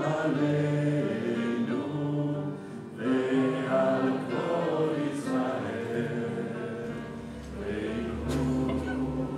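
Choral music: a choir singing sustained, held chords in slow phrases, in a gospel or hymn style.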